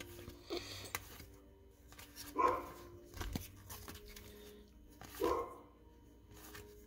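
A dog barking a few times, short single barks two to three seconds apart, over the soft rustle and flick of trading cards being handled.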